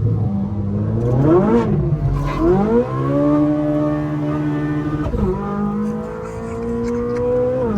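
Straight-piped Ferrari 458 Speciale's naturally aspirated V8 under way: the revs rise and fall once about a second and a half in, climb again and hold steady, then drop sharply twice, about five seconds in and near the end, as it changes up a gear.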